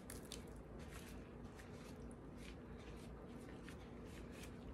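Gloved hands squeezing and working a damp mix of grated cassava and coconut in a large stainless steel bowl: faint, soft squishing with small crackles.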